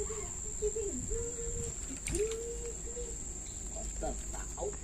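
Steady high-pitched insect drone, with lower held, wavering tones coming and going beneath it.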